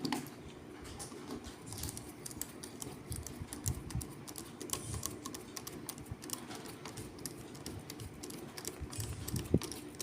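Small clicks and taps of the plastic and metal parts of a molded case circuit breaker being handled and fitted back together, coming quickly and irregularly, with one sharper knock near the end.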